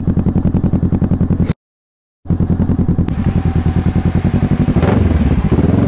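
Kawasaki Z650's parallel-twin engine running at low revs under slow riding, a steady rapid throb. The sound cuts out completely for under a second about a second and a half in, and a brief hiss comes near the end.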